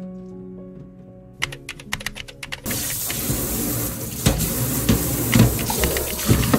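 Background music, joined about a second and a half in by a quick run of clicks. A little later a tap starts running into a sink, with a few knocks.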